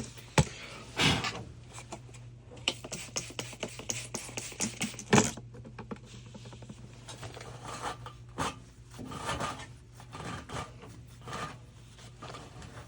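Hand scraping and rubbing at a gas water heater's clogged burner and thermocouple, cleaning off the dirt and soot, in a quick run of strokes a few seconds in and softer rubbing later. A few sharp knocks fall among them.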